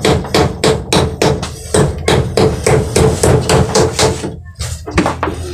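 A stone used in place of a hammer, driving a nail into a plywood sheet: rapid even strikes about four a second, breaking off a little after four seconds in, then two more.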